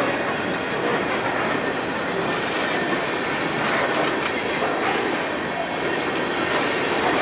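Coal gondola cars of a freight train rolling past close by: a steady rumble of steel wheels on the rails, with a few clicks from the wheels crossing rail joints.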